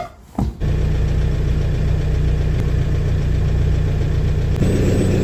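Diesel engine of a Manitou telehandler starting up after a short pause and settling into a steady idle. The note shifts slightly and a faint high whine joins near the end.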